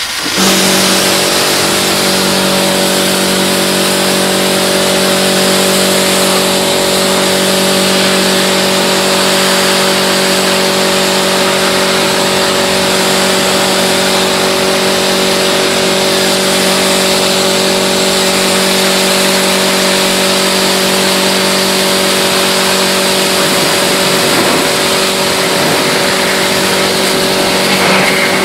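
A motor-driven cleaning machine switched on suddenly and running steadily and loudly: an even motor hum under a strong hiss of rushing air or water.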